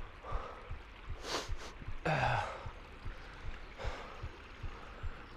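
A man's heavy breathing: a sharp gasp about a second in, then a short sigh falling in pitch. Soft regular thumps come about two or three times a second throughout.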